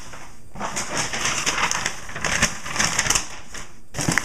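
Packing material being crumpled and pressed into a shipping box by hand, a run of crinkling and crackling bursts as it is packed tight.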